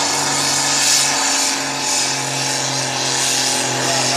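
John Deere 7710's six-cylinder turbo diesel running flat out under full load, pulling a tractor-pulling sled. The engine note drops slightly about a second in as the sled's load builds.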